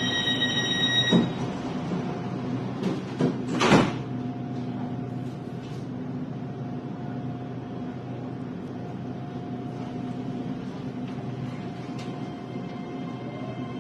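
Electric commuter train's door warning beep ending about a second in, then the sliding doors thud shut twice, the second the louder. The carriage then settles into a steady hum.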